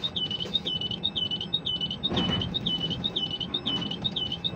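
Ship-to-shore quay crane's electronic warning alarm, a high tone that dips and rises back, repeating about twice a second over the low steady drone of the crane machinery, with a dull bump about two seconds in; the alarm stops right at the end.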